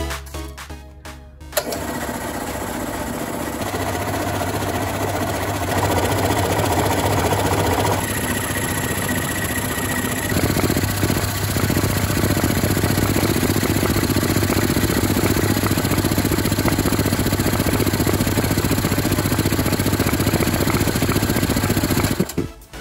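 Belt-driven piston air compressor with a 1/4 hp electric motor starts about a second and a half in and runs steadily, pumping up its 36-litre tank as the pressure builds toward about 8 kg/cm². It stops abruptly near the end.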